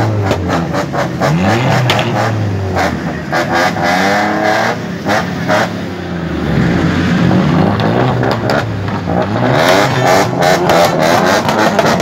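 Modified car engines revving again and again, the pitch climbing and falling with each blip of the throttle, with short crackles through much of it and heaviest near the end.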